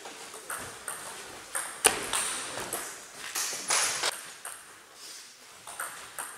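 Table tennis ball clicking off bats and the table: a string of short, sharp, irregular clicks, the loudest a little under two seconds in.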